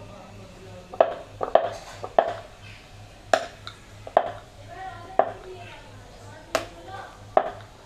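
Wooden rolling pin rolling and knocking on a round wooden board as thin dough is rolled out: about nine sharp wooden clacks, irregularly spaced roughly a second apart.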